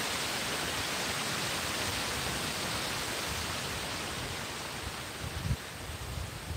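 Steady rushing of water from a cascade tumbling over stone terraces, slowly fading. A few low bumps come near the end.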